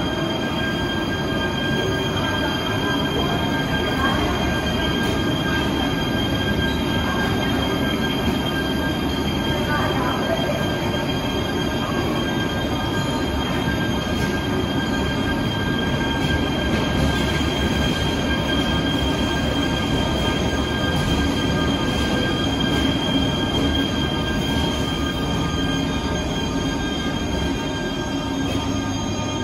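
Train running close by: a steady loud rumble with several steady high-pitched tones held over it.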